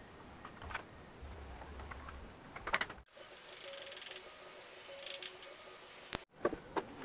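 Wooden formwork being pried and knocked off a cast concrete countertop: scattered light knocks and taps, with two spells of harsh scraping and a faint squeak in the middle.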